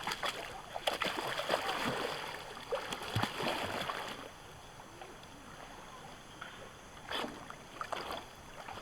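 Water splashing and sloshing, busiest for the first four seconds, then quieter with two short splashes near the end.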